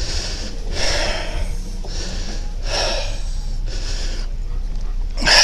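A person breathing heavily close to the microphone, about one loud breath a second, over a steady low hum.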